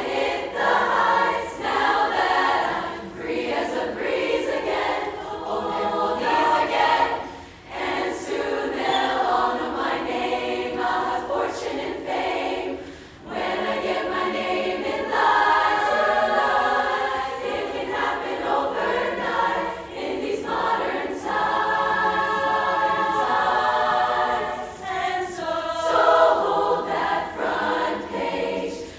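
Large choir of many voices singing together, heard from the audience seats in an auditorium, with two brief breaks in the singing about eight and thirteen seconds in.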